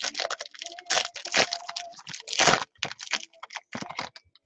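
Foil wrapper of a trading-card pack crinkling and tearing as it is ripped open: a dense run of crackles, loudest about two and a half seconds in.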